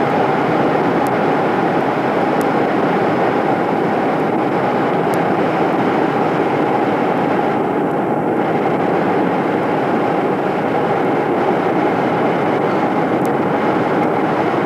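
A loud, steady rushing noise with no words or clear pitch, which cuts off suddenly at the end.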